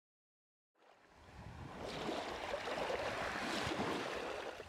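Sea waves washing in, a steady noisy surf that fades up from silence about a second in.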